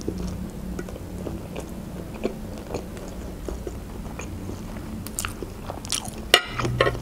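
A person eating wide noodles close to the microphone: chewing with many small wet mouth clicks. About six and a half seconds in there is a sharp click and a brief voiced sound.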